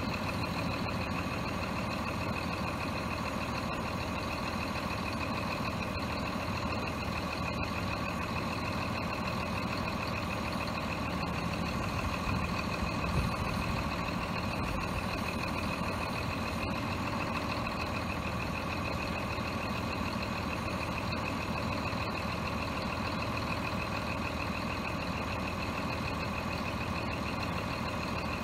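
Scania R420 truck's six-cylinder diesel engine running steadily while its truck-mounted hydraulic crane is worked, with a steady high whine over the engine.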